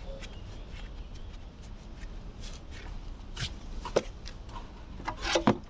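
Rubbing and scraping of hand cleaning work on parts, with a sharp click about four seconds in and two more near the end.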